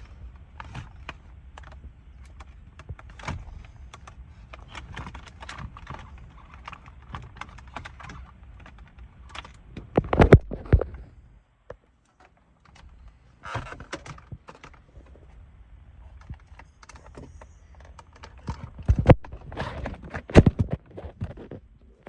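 Hands working at a car's dash: irregular clicks, rattles and light knocks of plastic trim and radio retaining clips being unclipped, with a few loud sharp knocks about ten seconds in and twice near the end.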